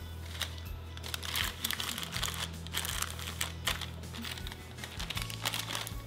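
Background music with a steady low tone, over repeated short bursts of rustling and crinkling as a cotton tea towel is spread over a parchment-lined cake pan.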